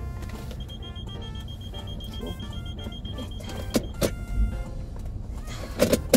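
A car's steady high electronic warning tone, like a parking sensor's continuous beep, sounds for about three seconds and then stops, followed by a few sharp clicks inside the car, the loudest near the end. Background music plays underneath.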